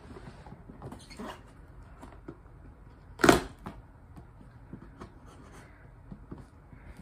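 Scissors snipping and cutting through packing tape on a box, with small clicks and rustles throughout and one much louder short rip or scrape about three seconds in.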